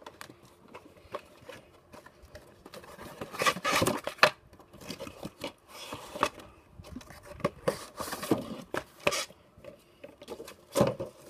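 Cardboard toy-train box being opened by hand, the inner box slid out and the packaging handled, making scraping and rustling in several bursts. The loudest bursts come a few seconds in and again near the end.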